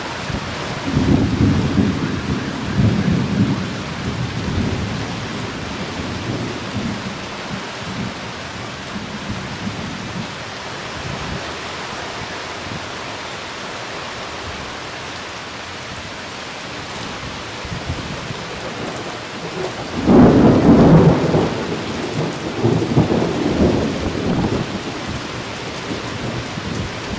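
Steady rain falling on a pitched tarp and the surrounding lawn, a constant hiss. Low rumbling surges come through about a second in and again near the end, the loudest about twenty seconds in.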